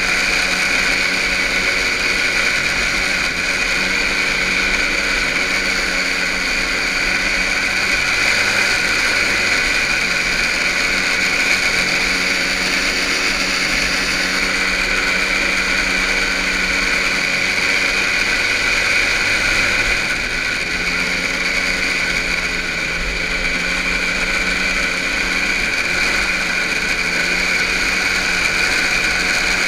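Small engines of children's Kitty Cat snowmobiles running during a race: a steady mechanical drone whose pitch wavers slowly up and down.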